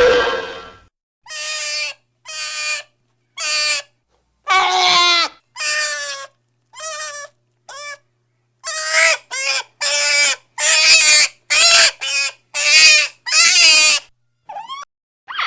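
A quick series of short, pitched animal-like cries, about a dozen and a half, each under a second, some bending in pitch, with dead silence between them.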